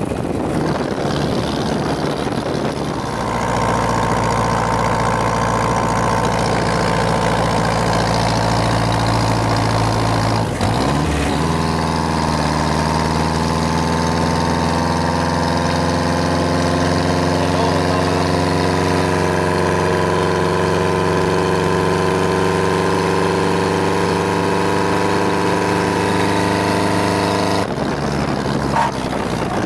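An engine running steadily at an even pitch, with a brief break and a slight shift in pitch about eleven seconds in.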